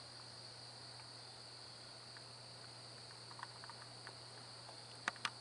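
Steady high-pitched chorus of night insects such as crickets, over a faint low hum. A few faint ticks come in the second half, with two sharper clicks near the end.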